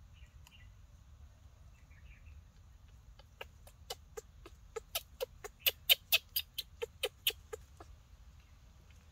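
A baby monkey giving a run of short, sharp cries, about four a second, starting a few seconds in, loudest in the middle and stopping near the end.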